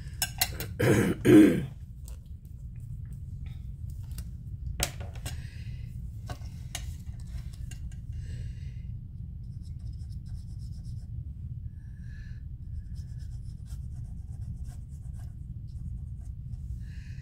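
A woman coughs twice in quick succession about a second in. After that come faint scattered clicks and light rustling of paper pieces being handled, over a steady low hum.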